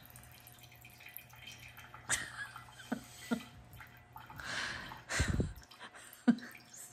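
Homemade banana moscato wine trickling in a thin, faint stream from a glass bottle into a small glass jar, a sound like somebody peeing five rooms over. A low thud a little after five seconds in and a sharp knock about a second later are the loudest moments.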